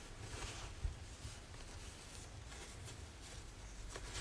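Faint rustling of a cotton patchwork cloth being handled and folded, in a few soft brushes over a low room hum.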